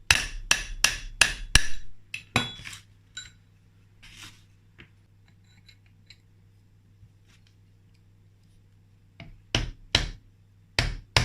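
Sharp metallic hammer taps on metal: a quick run of about eight strikes at roughly three a second, then a few light clinks of metal parts, and another handful of strikes near the end.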